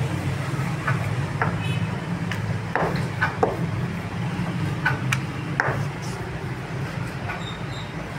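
Wooden rolling pin working thin dough on a marble slab, giving scattered light knocks and clicks, over a steady low motor rumble.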